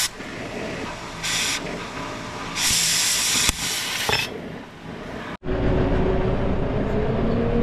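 Hissing noise, louder in two bursts of about half a second and one second. It cuts off abruptly about five seconds in, and an engine then runs steadily with a slowly rising whine.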